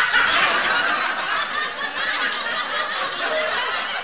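Loud, continuous laughter with no break.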